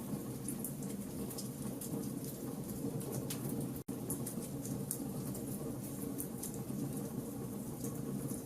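Wood fire burning in a fireplace: a steady low rumble of flames with frequent sharp crackles and pops. The sound cuts out for a split second just under four seconds in.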